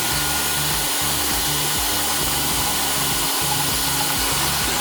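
Blower tool running in vacuum mode, a steady loud rushing with a high motor whine, sucking dirt out of a portable air conditioner.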